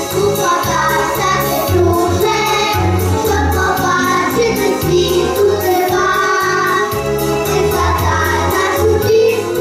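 A small group of young children singing together into microphones, a cheerful song over a backing accompaniment with a stepping bass line and a steady beat.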